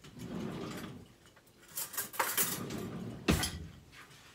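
A metal fork and a china plate clinking: a few sharp clinks about two seconds in, then a single louder knock just after three seconds.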